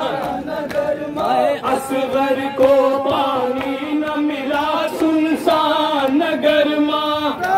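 Noha, an Urdu mourning lament, sung by a man into a microphone, with a crowd of men chanting along in unison.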